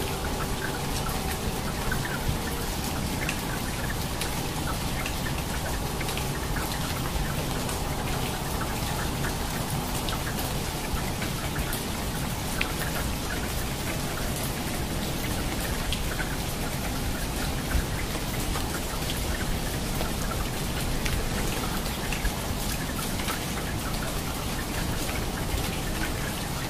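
Steady rain falling, with many small, sharp ticks of single drops landing.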